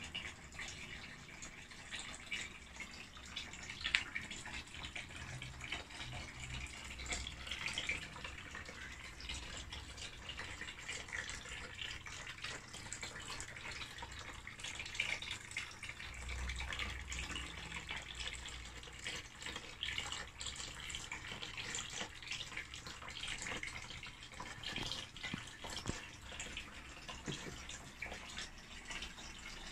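A small homemade merlion fountain running: a thin stream of water falls from the spout and splashes steadily into its shallow basin.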